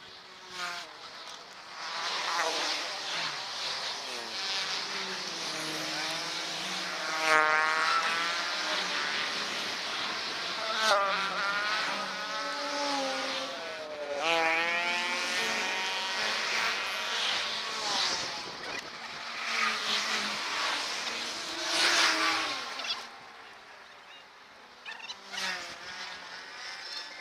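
Road traffic passing close by: motor engines whining up and down in pitch as vehicles go past, over a steady rush of wind and road noise.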